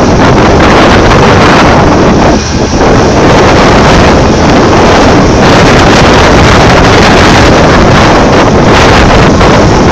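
Heavy wind buffeting the microphone, loud and steady with a brief dip about two and a half seconds in, over the Komatsu PC8000 mining excavator running.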